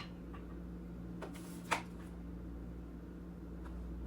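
Handling noises: a few light clicks and one sharper knock just under two seconds in, with a brief rustle before it, over a steady low hum.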